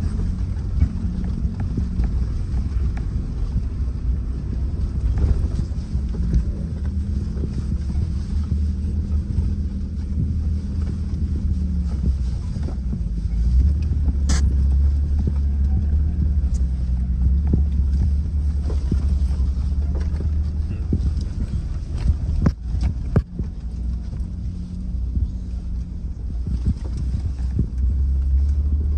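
Low, steady rumble of a pickup truck's engine and tyres crawling over a rough dirt trail, heard from inside the cab, with a few sharp knocks about halfway through and again later.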